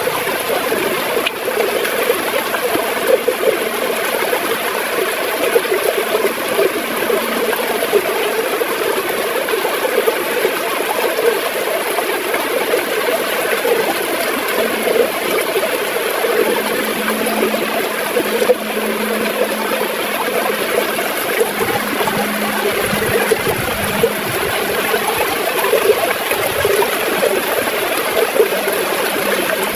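River water gurgling and flowing steadily over stones.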